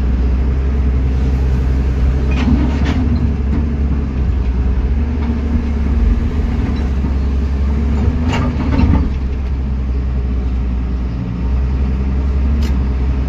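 JCB JS 205 LC tracked excavator's diesel engine running steadily with a deep hum while the machine swings and digs. A few short knocks come through, about two and a half, eight and a half and twelve and a half seconds in.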